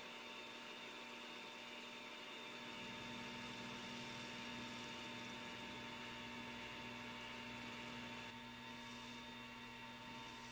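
Faint, steady electrical hum with several steady tones, unchanging throughout.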